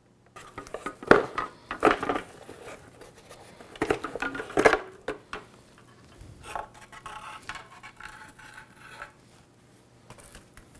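Hard plastic motorcycle panel parts being handled and pulled apart on a workbench: a few sharp clacks and knocks in the first five seconds, then a stretch of softer rubbing and rattling.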